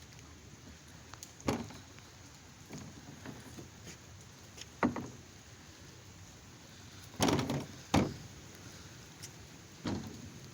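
Steady hiss of falling rain, broken by about five sharp knocks, the loudest about five and eight seconds in.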